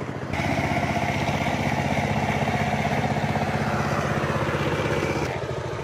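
A small engine running steadily with an even pulse. It steps up abruptly in loudness about a third of a second in and drops back near the end.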